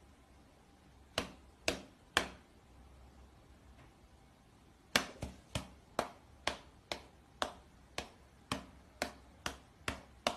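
Light, sharp taps of a cat's front paws against a person's open hand in a pat-a-cake game. There are three taps, then a pause of about three seconds, then a steady run of about a dozen taps at roughly two a second.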